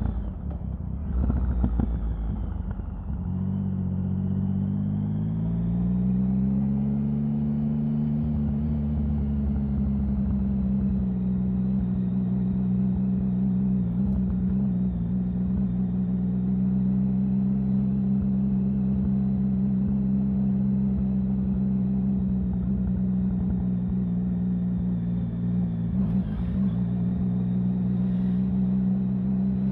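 Triumph Sprint 1050's inline three-cylinder engine running under way. It goes briefly rough about two seconds in, then its pitch rises over the next few seconds and holds steady.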